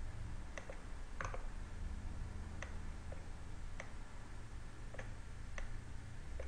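Computer mouse buttons and keyboard keys clicking: about ten short, sharp clicks at irregular spacing, some in quick pairs, over a faint steady low hum.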